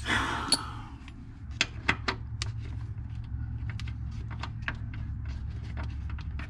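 Scattered sharp metallic clicks and taps from the rear shock absorber's mounting hardware being worked by hand, over a steady low hum.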